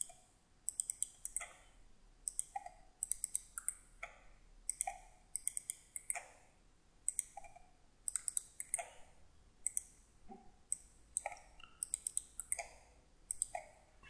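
Computer mouse buttons clicking in short runs of two or three, again and again, as cells are selected and pasted into row by row.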